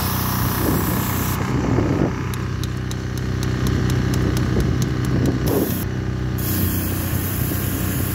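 Pressure washer firing water through a chewing-gum remover head with 18 ceramic needle jets onto block paving, a hissing spray over the machine's steady running hum. The spray cuts off about a second and a half in, leaving the hum with a light ticking of about five a second, and comes back on about six seconds in.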